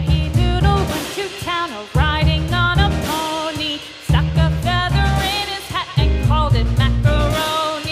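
Background music: a song with a melody over a steady bass and drum beat.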